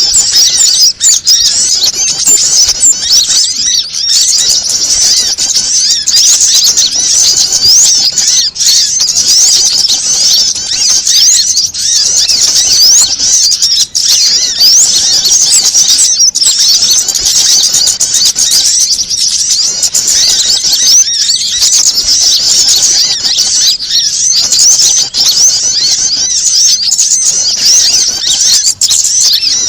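Bird-lure recording of small songbirds calling excitedly, a layered mix of prinia, sunbird and other small-bird calls. Many quick, high-pitched chirps and trills overlap in a dense, unbroken chatter.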